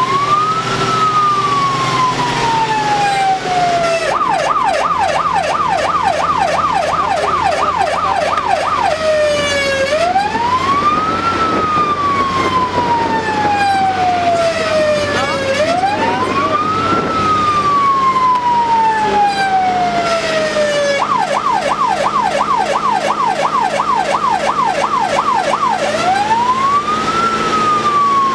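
Fire engine siren heard from inside the cab, alternating a slow wail (a quick rise, then a long fall over several seconds) with a fast yelp of about three sweeps a second, which comes in twice. The truck's engine runs steadily underneath.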